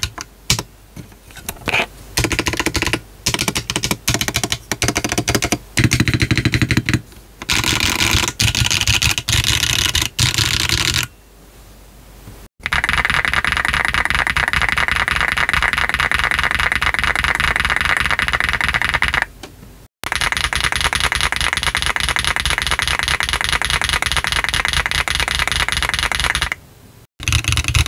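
Typing on a GDK DK1-TKL mechanical keyboard with a brass bottom case: scattered separate keystrokes for about the first ten seconds, then a short pause and long runs of fast, continuous typing. A brief break comes near the middle of the runs and another shortly before the end.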